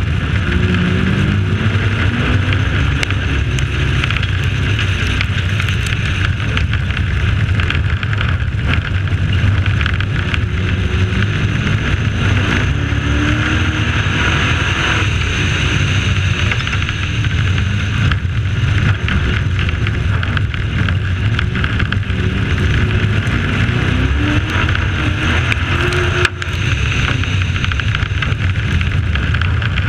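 Race pickup truck's engine running hard on a dirt oval, the revs rising and falling as it drives through and out of the turns.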